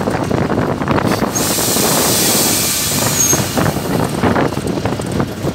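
An old GE diesel locomotive running along the track, heard from its front end with wind rushing over the microphone. About a second and a half in, a strong air hiss starts and lasts roughly two and a half seconds.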